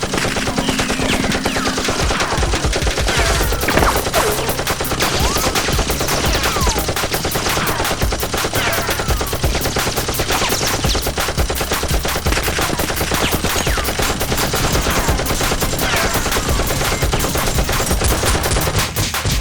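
Sustained rapid automatic gunfire, a dense stream of shots many per second, with short falling whistles scattered through it. It is added gun sound effect rather than the soft pops of real foam-dart blasters.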